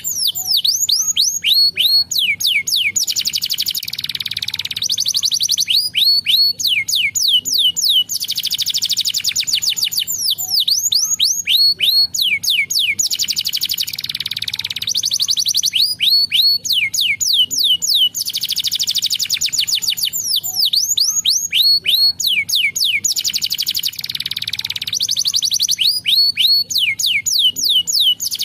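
Domestic canary singing without a break: rapid trills of fast falling notes alternating with rolling, buzzy phrases, the same sequence coming round about every six seconds.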